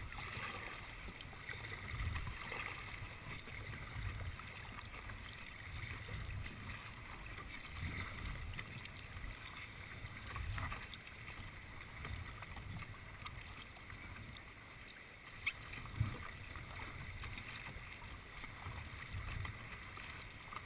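Kayak paddle strokes in calm seawater: a soft dip and swish of the blade roughly every two seconds. There is a single sharp knock about three-quarters of the way through.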